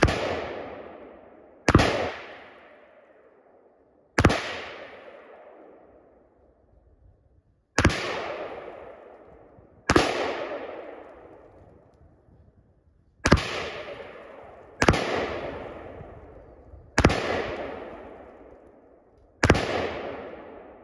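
AR-15 rifle firing nine deliberate, unevenly spaced aimed shots, one every two to three seconds or so, each followed by an echo that dies away over about two seconds.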